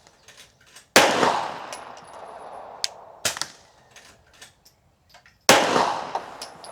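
Two Glock 34 9mm pistol shots about four and a half seconds apart, slow fire, each ringing out in a long echo. Fainter sharp cracks sound between them.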